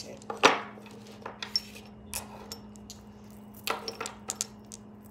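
Objects being handled and set down on a tabletop: a loud knock about half a second in, scattered small clicks, and a quick run of knocks and clinks around four seconds in, over a faint steady hum.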